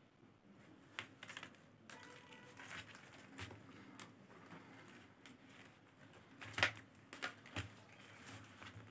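Faint, irregular clicking of faceted plastic beads knocking together as beads are threaded and the beaded panel is handled, with a sharper cluster of clicks about three quarters of the way through.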